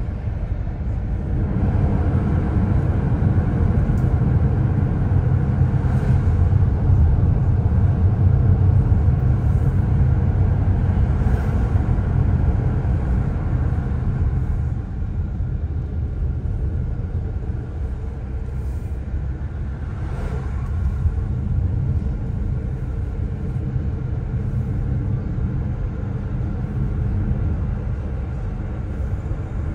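Car driving along a winding road, heard from inside the cabin: a steady low rumble of engine and tyre noise. It is louder for the first dozen seconds or so, then eases a little.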